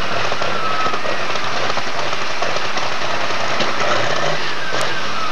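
Super stock pulling tractor's turbocharged engine running loud and steady under power on the pulling track.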